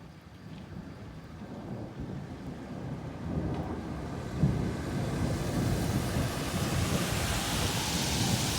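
Thunder rumbling, swelling gradually and loudest over the second half, with a hiss rising in the upper range near the end.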